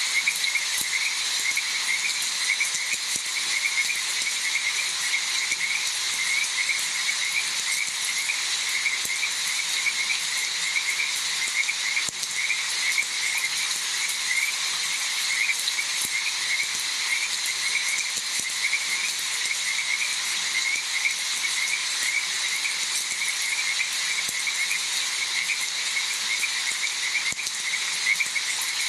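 A chorus of frogs calling without pause, short calls repeating several times a second over a steady hiss of rain.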